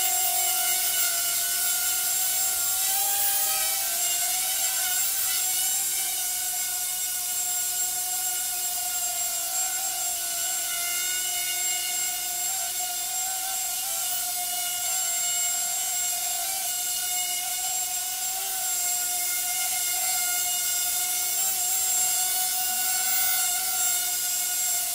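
Hubsan H107D micro quadcopter hovering, its four small coreless motors and propellers giving a steady high whine, with a brief rise and dip in pitch about three seconds in as the throttle changes.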